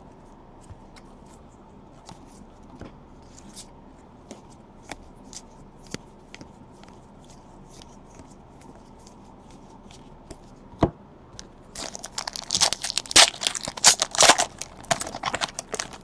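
Trading cards flipped through by hand, with soft scattered clicks and flicks. About twelve seconds in, a Panini Contenders Draft basketball card pack is torn open, with loud crinkling and tearing of the wrapper for the last few seconds.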